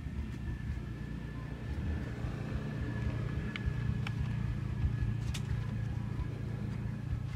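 A low, steady rumble with a faint, steady high whine running through it, and a few light clicks.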